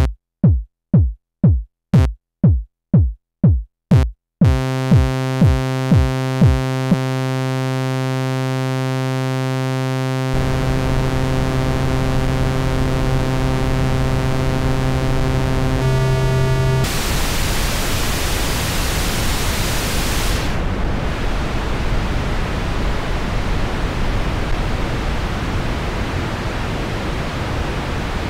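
KORG iMS-20 synthesizer app building an aircraft-like effect. First comes a repeating drum-machine thump that drops in pitch, about two per second. A steady buzzy tone joins about four seconds in. Then a rushing noise hiss takes over: it brightens about halfway through and loses its top end a few seconds later as it is filtered.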